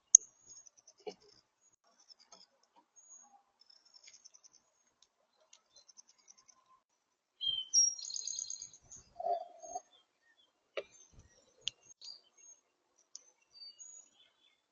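Small songbirds chirping: scattered short high chirps, with a louder run of chirps about eight seconds in and a couple of sharp ticks a few seconds later.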